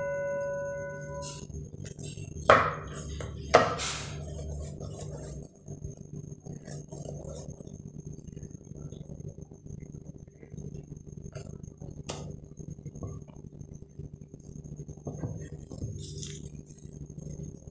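A stainless steel plate's ringing fades out, then two sharp knocks of kitchenware being set down a second apart, about two and a half seconds in. After that, faint handling clicks over a steady low hum.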